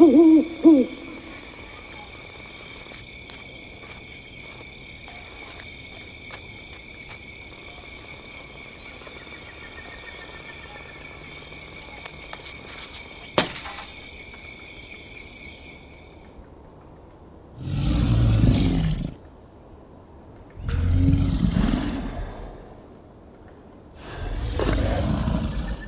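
An owl hooting briefly at the start, then a steady high-pitched whine with scattered faint clicks and one sharp click about 13 seconds in. Near the end, three loud blasts of noise, each about a second and a half long, about three seconds apart.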